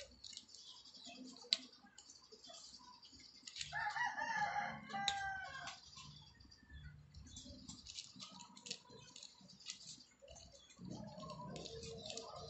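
Cat crunching dry kibble: a run of small crisp clicks. About three and a half seconds in, a loud drawn-out animal call lasting about two seconds rises over the crunching, and a fainter call comes near the end.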